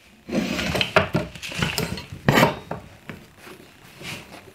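Steel pipe clamps clanking and clinking against the workbench and the wood as they are set on a glued-up cabinet door frame and screwed tight. The loudest knocks come about a second in and again midway, then it settles to lighter clinks.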